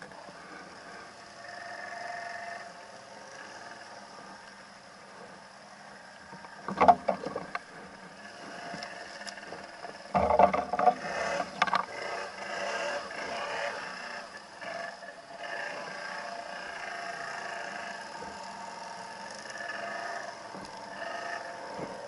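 ATV engine running steadily as the quad pushes through thick brush, with loud knocks and scraping from branches hitting the machine about seven seconds in and again around ten to twelve seconds.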